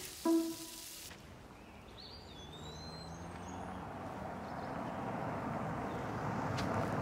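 A car approaching on a paved road, its tyre and engine noise growing steadily louder, with a few bird chirps just before it. At the very start a short pitched music note and a high hiss cut off about a second in.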